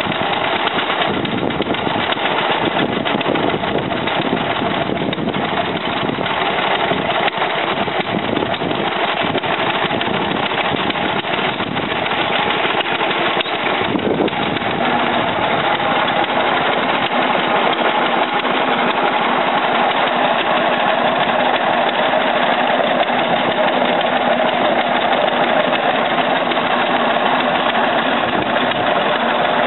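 Engine of a Beeman garden tractor running steadily; its note grows stronger about halfway through as the tractor pulls away and drives off.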